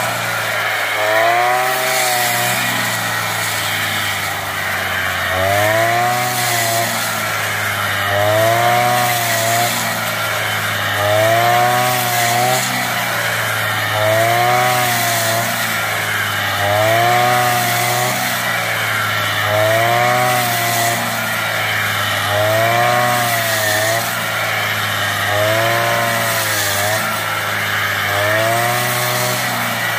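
Small petrol engine of a backpack brush cutter, rigged as a rice cutter, running under load as it cuts rice stalks. Its pitch rises and falls in a regular cycle about every three seconds with each cutting sweep.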